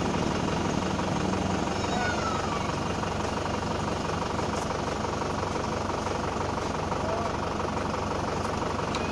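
An engine running steadily at idle under constant background noise.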